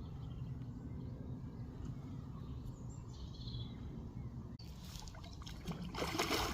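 Outdoor bankside background noise with a steady low rumble, a faint bird call about three seconds in, and a louder burst of rustling noise near the end.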